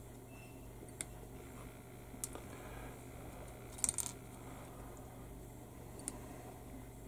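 Tamiya sprue cutters snipping small plastic parts off a styrene sprue: four sharp clicks spread a second or two apart, the loudest a quick double snip a little past halfway, over a faint steady hum.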